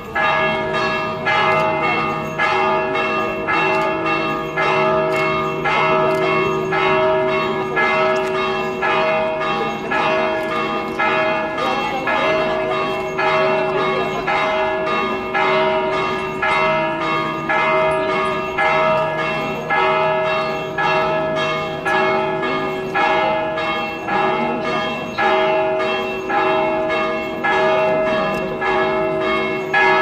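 Church bells pealing: loud, evenly repeated strokes, about three every two seconds, with several pitches ringing on between them, starting suddenly. They are rung in celebration of the Jubilee door's opening.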